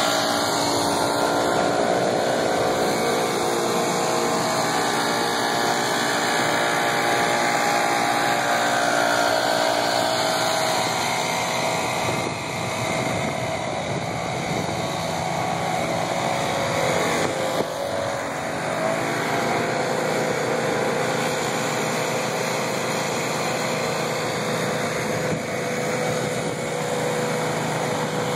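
Small petrol engines of greens-maintenance machines, a Toro ProCore aerator and a walk-behind Jacobsen greens mower fitted with a Core Hog core collector, running steadily, with a brief shift in engine pitch about two-thirds of the way through.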